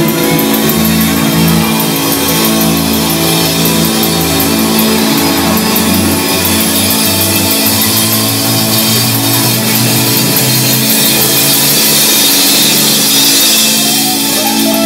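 Live rock band playing loudly, with a drum kit keeping steady cymbal strokes over sustained electric guitar and bass notes.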